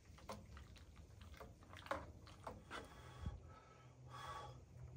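Faint light clicks and taps of a spoon stirring in a metal camp cup, then a soft low thump about three seconds in and a short soft rush of noise near the end.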